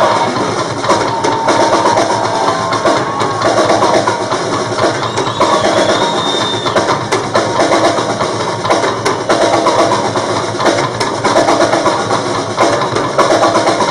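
Tama drum kit played in a live rock performance: fast fills of drum hits across the kit, bass drum and cymbals, with faint held tones in the mix.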